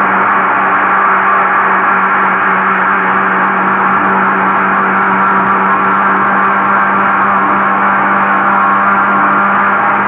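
Electric mixer grinder running at a steady speed, blending boiled amla pulp with sugar, spices and water into a smooth crush: a loud, even motor hum and whirr.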